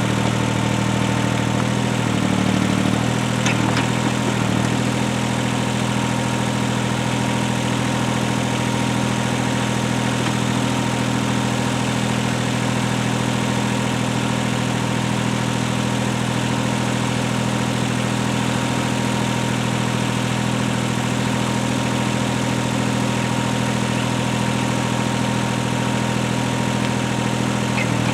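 Heavy-equipment engine running steadily at a constant speed.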